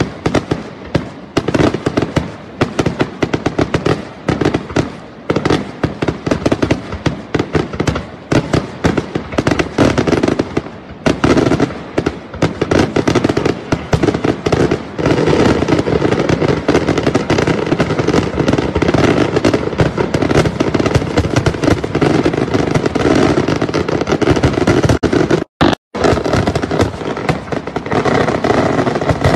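Aerial fireworks display: a rapid barrage of shell bursts and crackling stars, dense sharp reports that merge into an almost continuous roar about eleven seconds in. Near the end the sound cuts out twice for an instant.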